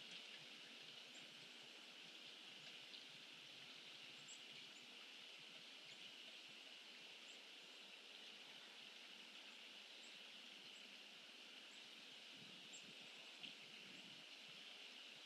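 Faint outdoor ambience: a steady hiss with a few faint, very short, high-pitched chirps scattered through it.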